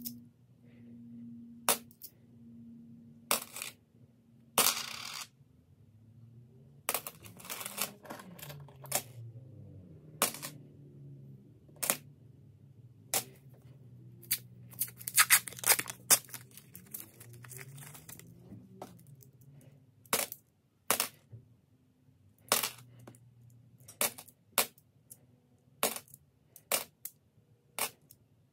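Australian $1 coins clinking as they are handled and dropped one at a time. There are two denser bursts of jingling about a quarter and half way through, and a quicker run of single clinks near the end.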